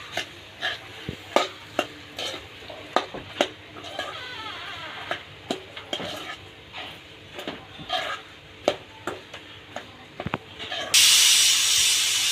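Steel spoon stirring and scraping a spiced boiled-potato filling in a metal pan on the heat, with irregular clinks of metal on metal over a faint sizzle of oil. Near the end a loud steady hiss comes in for about a second.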